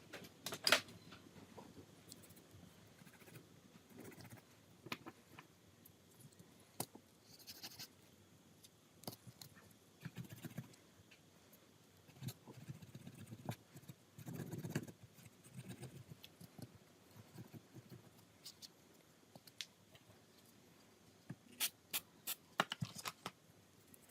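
Faint, scattered small clicks, taps and soft scraping of hand tools and small parts being handled while a smartphone is worked on, with a couple of sharp clicks about a second in and a quick run of clicks near the end.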